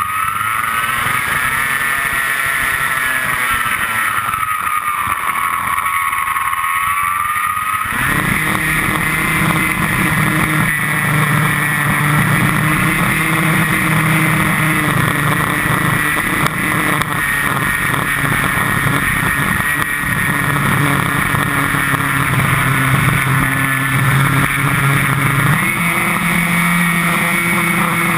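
Onboard sound of a radio-controlled glider in flight: a steady whining buzz. Its pitch slides up and then down over the first several seconds, and a deeper buzz joins about eight seconds in and then holds steady.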